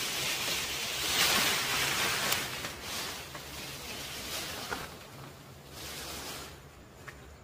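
Rustling noise with a few small sharp cracks, loudest over the first few seconds and then dying down.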